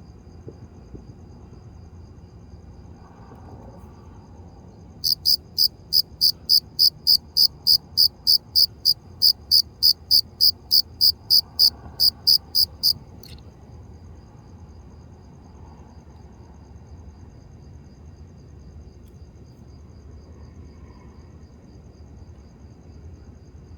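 Cricket stridulating, rubbing its wings together. It gives a run of loud, evenly spaced chirps, about three a second, for roughly eight seconds, then stops suddenly. A much fainter steady chirping at the same pitch carries on before and after the run.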